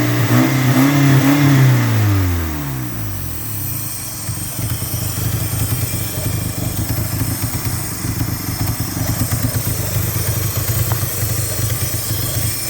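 Mitsubishi 4G63 inline-four engine falling from a brief rev back to idle over the first few seconds, then idling steadily. The engine has a vacuum leak that the owner can hear but has not located.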